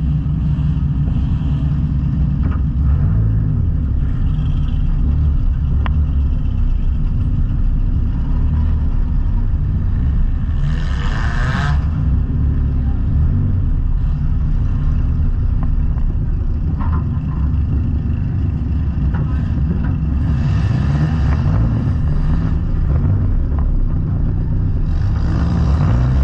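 Junk race car's engine running at low speed as the car creeps along, a steady heavy rumble heard from inside the gutted cabin. A few brief louder, hissier stretches come about ten seconds in, around twenty seconds, and near the end.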